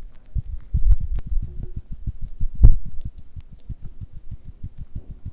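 Foley sound effect: a fast run of dull, low thuds, many a second, with one heavier thud about halfway through.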